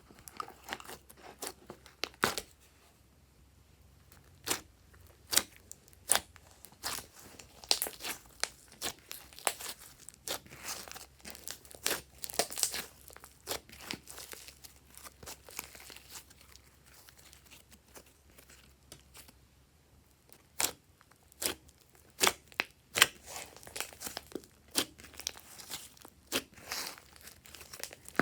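Hands squishing and stretching glossy slime: irregular sticky pops and crackles, going quiet for a few seconds twice.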